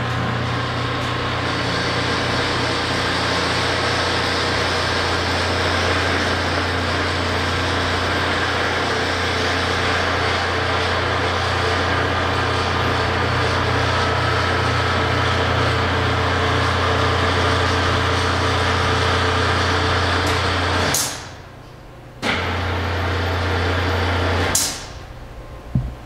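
Electric drive motors of a Ritter R-525 case clamp running with a steady low hum as the pressure beams travel. The motor stops with a click about 21 seconds in, runs again for about two seconds, then stops with another click.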